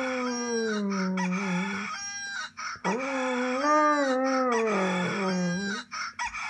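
A birdsong alarm clock playing a recorded rooster crowing: two long crows of two to three seconds each, rising quickly and then sliding slowly down, with a shorter call near the end.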